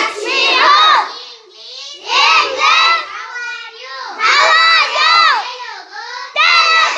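A class of schoolchildren reciting Nepali phrases loudly in unison after the teacher: four loud chorus bursts about two seconds apart, with a quieter voice leading in the gaps.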